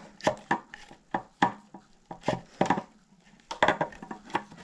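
Irregular clicks, taps and rubbing of a hydraulic brake hose being pushed down through a carbon fork steerer, with the fork handled in the hands.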